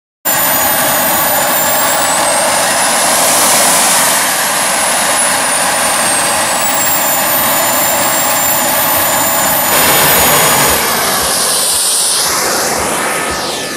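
An RC jet's ATJ 190SV model gas turbine running loudly: a high whistle that rises and falls in pitch over a steady rush of exhaust.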